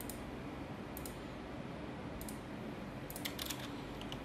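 A few scattered clicks from a computer keyboard and mouse, with a small cluster about three seconds in, over a faint steady room hum.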